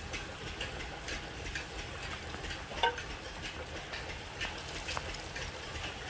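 Water from a standpipe tap running into a plastic bucket: a steady hiss, with a few faint clicks and splashes as a tin can is handled over the bucket.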